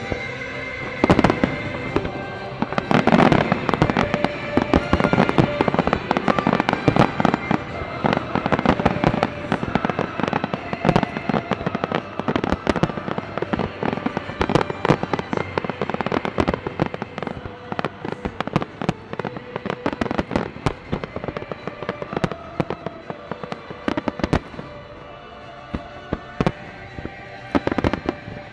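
Fireworks display: a dense barrage of bursts and crackling over music with steady tones, starting about a second in and easing off briefly near the end before a few more bursts.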